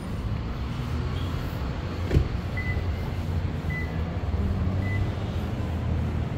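Steady low rumble of city street traffic, with a single sharp knock about two seconds in and three short high beeps about a second apart after it.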